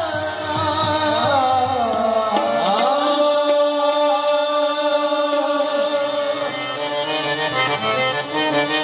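Qawwali music: harmoniums hold a sustained melody over hand-drum strokes, with a singer's voice sliding down in the first few seconds before the instruments carry on alone.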